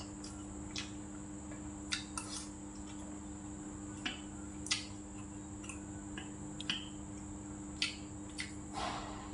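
Chopsticks and a spoon tapping and clinking against bowls and plates while eating: scattered light clicks about a second apart, with a brief noise near the end, over a steady background hum.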